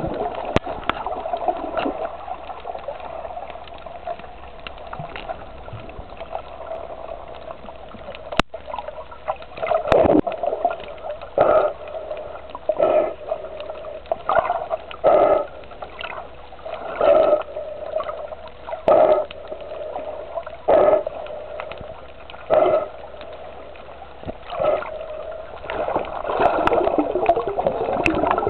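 Muffled underwater water noise from a snorkeler swimming, with a regular swish about every two seconds from roughly a third of the way in.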